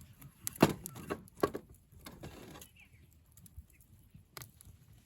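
Campfire wood crackling and popping: a cluster of sharp cracks in the first two seconds or so, the loudest just under a second in, and one more pop near the end.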